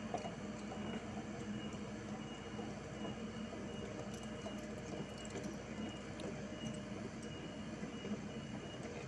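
Komatsu PC78US mini excavator's diesel engine running steadily as the machine travels on its crawler tracks, with scattered light clicks over the drone.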